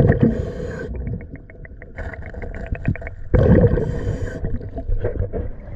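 A diver breathing through underwater breathing gear, exhaled bubbles rushing out twice, about three and a half seconds apart, with a fast even ticking of about seven clicks a second between breaths.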